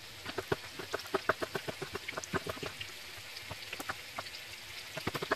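Chef's knife chopping soaked wood ear mushroom on a plastic cutting board: a quick run of sharp taps against the board, fast for the first couple of seconds, then slower and more scattered.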